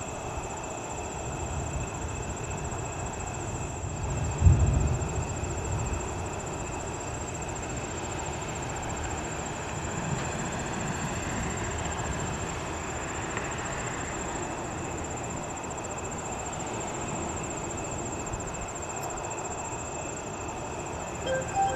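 Thunder rumbling over a steady outdoor hiss, with one louder low boom about four and a half seconds in that dies away over a second or two.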